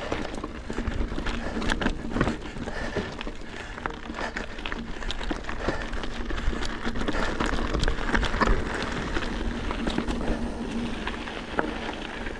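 Mountain bike rolling over a rocky dirt trail: the tyres rumble and crunch on the ground, and the bike rattles and clicks sharply over the rocks again and again.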